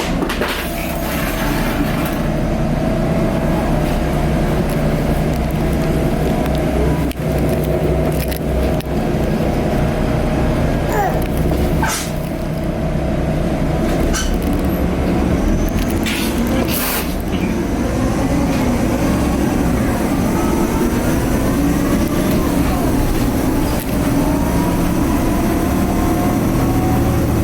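Ride inside a 2010 Nova Bus LFS Articulated under way: its Cummins ISL diesel runs steadily with a turbo whine that rises in pitch several times as the bus accelerates, over road noise. A few short sharp hisses or rattles cut in, about half a second, twelve and seventeen seconds in.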